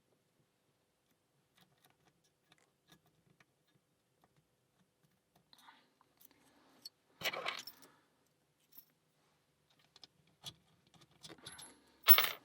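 Lock picks working inside a small brass padlock, with faint scattered metallic clicks and ticks. There is a louder metallic jangle about seven seconds in and the loudest rattle near the end as the lock and tools are handled.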